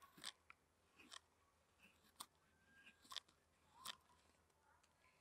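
Carving knife slicing wood on a spoon handle: about five short, crisp cuts, roughly one a second.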